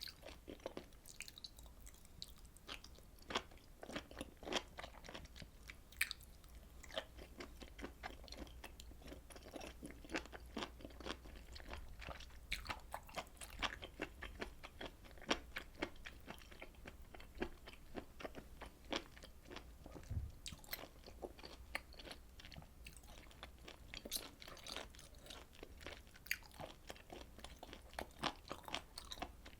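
Close-miked chewing of grilled beef and pork intestines: many short, irregular clicks and bites as the chewy offal is worked in the mouth.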